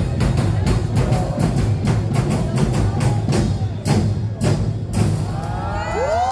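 Street-dance drum and percussion ensemble playing a fast, steady beat, about four hits a second. Near the end, performers' voices rise into a shout.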